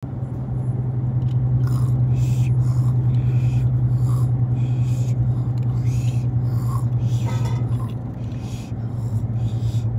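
Steady low drone of a car being driven, with short hissing swishes recurring about every second.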